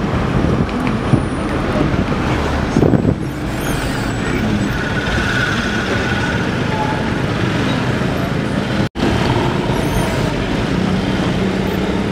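Busy city street traffic heard from a car among auto-rickshaws, cars and motorbikes: a steady mix of nearby engines and road noise. The sound cuts out for an instant about nine seconds in.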